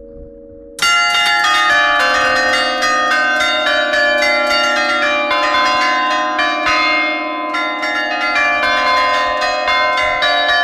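Church bells pealing. A faint low hum lingers, then about a second in a rapid, dense run of bell strokes starts, the rings overlapping and sustained.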